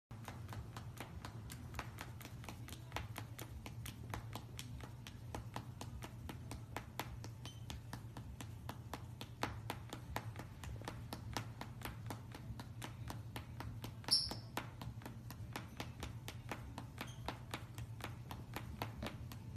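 Faint, irregular light clicks and taps, several a second, from a white-bellied caique's feet on a wooden floor, over a steady low hum. There is one short high squeak about fourteen seconds in.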